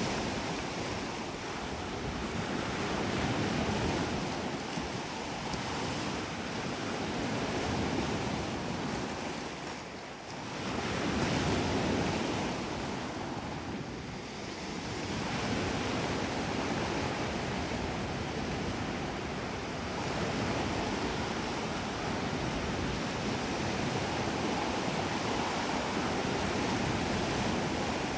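Sea waves breaking and washing up the beach, swelling and easing every few seconds with a brief lull about ten seconds in, while wind buffets the microphone.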